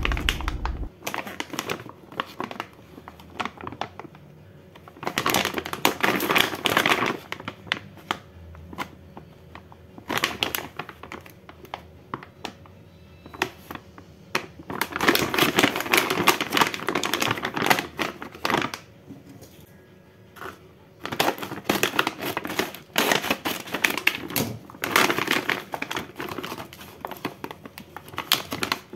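Plastic food pouch crinkling and rustling in irregular bursts as it is handled, turned over and opened. A low rumble fades out in the first second.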